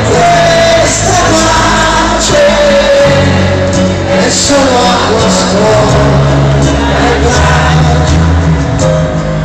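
Live pop-rock band playing through a stadium PA, recorded from within the crowd, with a sung melody wavering over bass notes that change every second or two.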